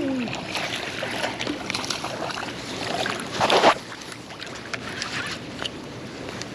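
Wind and water noise aboard a small boat, with scattered light knocks and clicks and one short, louder rush of noise about three and a half seconds in.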